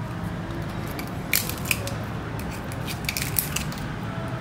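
Thin seashell cracking and snapping as pieces are broken off it with pliers: two sharp cracks about a second in, then a quick cluster of small snaps near the middle, over a steady low background hum.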